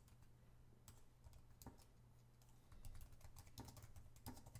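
Faint computer-keyboard typing: irregular keystrokes as a short phrase is typed, coming faster in the second half.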